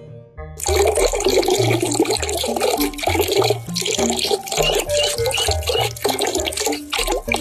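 Water running or splashing hard, like a tap, starting abruptly about half a second in, over background music with a stepping bass line.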